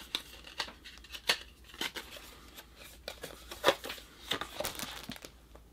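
Light clicks and rustling of a small cardboard pin card and enamel pin being handled and worked open, with a few sharper clicks now and then.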